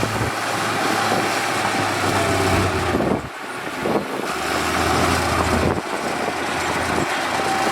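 Heavy construction machinery running: the steady noise of large diesel engines, with abrupt shifts in the sound about three seconds in and again near the end.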